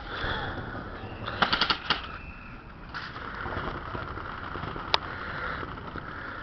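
Airsoft gun firing: a quick burst of about six shots a little over a second in, then a single shot near the end.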